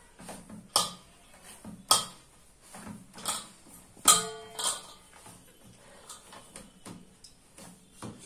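Stainless steel bowl clanking and knocking as balls of dough are pressed and turned in it, sharp knocks every second or so. The strongest comes about four seconds in and rings on briefly like struck metal.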